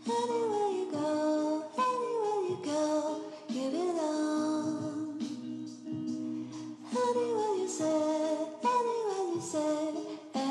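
Music: a high, singing melody line of falling, gliding notes over steady held lower notes.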